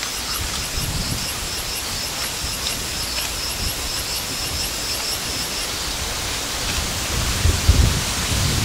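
Outdoor field ambience: a steady hiss with a high chirping in quick, even pulses, about four a second, that stops about six seconds in. Low rumbles come in near the end.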